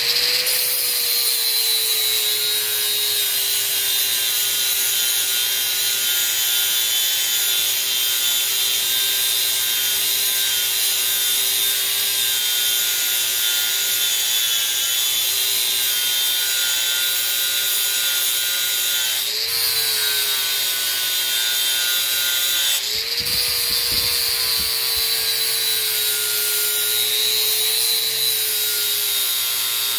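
Angle grinder with a flap disc grinding the cutting edge of a steel lawn mower blade to sharpen it. The motor whines steadily, its pitch sagging under load, and briefly rises twice, about two-thirds of the way through and again a few seconds later, as the disc comes off the blade and is pressed back on.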